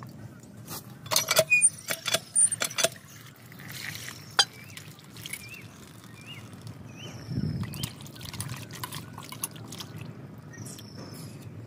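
Hands sloshing small fish in a steel bowl of water and lifting them out dripping, with sharp splashes and clinks against steel, loudest in the first few seconds; quieter handling follows as the fish are laid on a steel plate.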